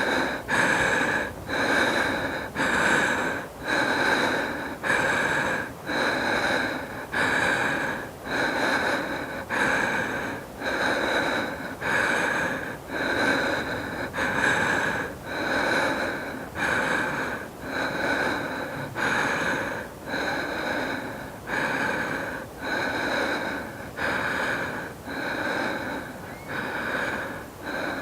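A woman breathing hard while catching her breath after exercise: heavy breaths at a steady rate of about one a second, growing slightly softer toward the end.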